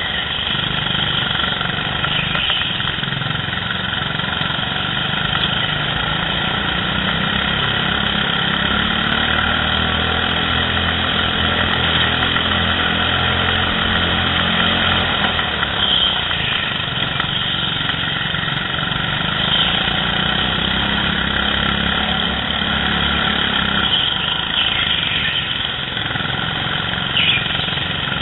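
Go-kart engines running at racing speed, the engine note shifting in pitch as the karts lap the track.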